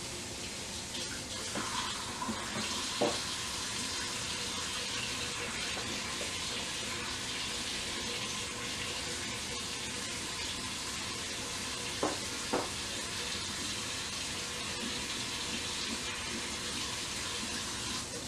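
Kitchen tap running steadily into the sink during hand dish-washing, with a few sharp clinks of dishes or utensils, twice in the first few seconds and twice about twelve seconds in.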